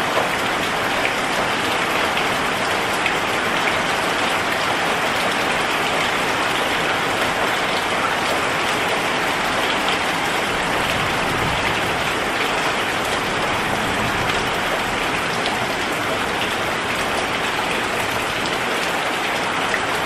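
Heavy rain falling steadily on tree leaves and a sheet-metal roof: a dense, even patter of drops with no letup.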